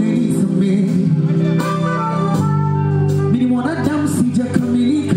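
Live band music: sustained keyboard chords that change about two and a half seconds in, with a voice singing over them in the second half.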